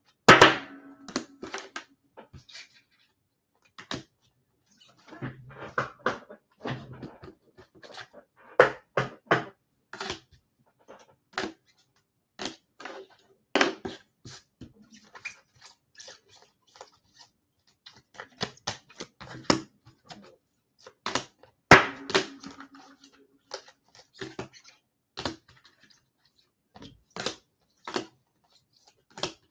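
Irregular clicks and taps, about one to three a second, with two louder knocks that ring briefly, one just after the start and one about two-thirds of the way through.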